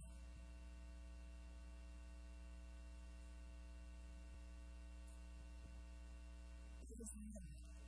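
Steady electrical mains hum with several even tones. A brief, faint pitched sound with a falling pitch comes in near the end.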